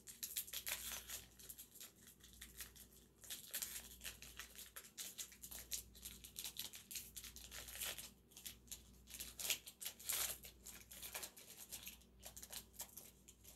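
Wrapper of a football trading-card pack being torn open and crinkled by hand: faint, irregular crackling and tearing throughout.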